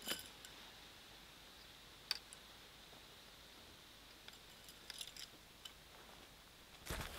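A few sharp, light clicks and ticks from tent gear being handled during setup, the tent poles and fabric, over a quiet outdoor background. The clearest click comes about two seconds in, with a small cluster around five seconds and a louder run of knocks near the end.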